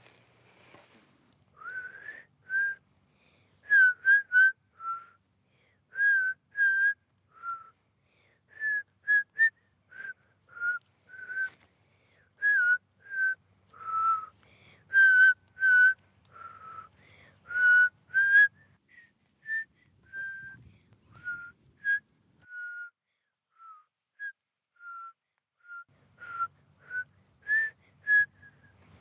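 A whistled tune: a long string of short, clear notes, some gliding slightly between pitches.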